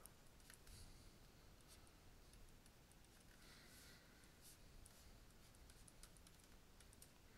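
Near silence: faint room tone with scattered soft clicks and a brief light scratching from a stylus writing on a tablet, about three and a half seconds in.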